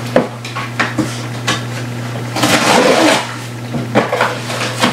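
Scissors opening a cardboard shipping box: a few sharp metallic clicks as the packing tape is cut, and a longer scraping rustle of cardboard about halfway through.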